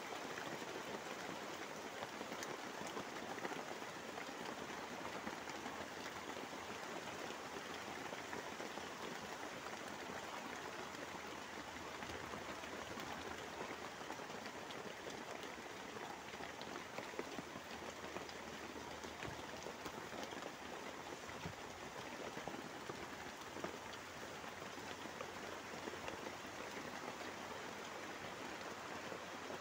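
Heavy rain falling steadily, pattering on the tarpaulin shelter overhead.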